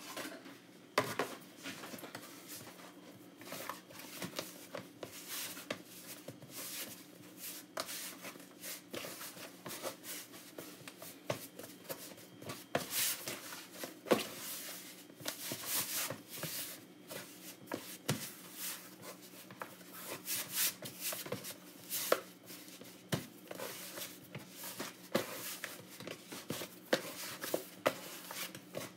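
Hands kneading stiff flour dough in a plastic tub: irregular dull knocks and rubbing as the dough is pressed, folded and turned, with the tub shifting against the counter.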